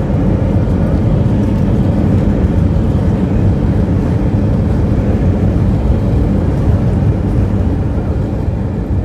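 Steady, loud engine and airflow noise inside the cabin of an Airbus A320, mostly a low rumble.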